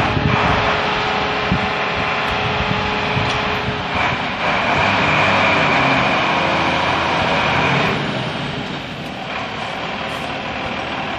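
Fire engine's diesel engine running as the heavy vehicle moves off, a steady loud mechanical noise that grows louder and brighter for a few seconds in the middle.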